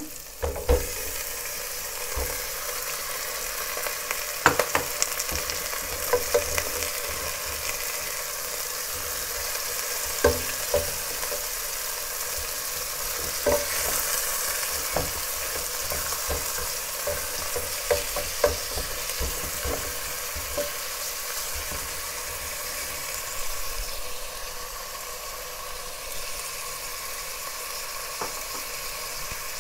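Chunks of raw lamb sizzling as they fry in a pot of onions and rendered fat, a steady hiss throughout. Sharp knocks come at the start as the meat drops in, then now and then as a wooden spoon stirs and strikes the pot.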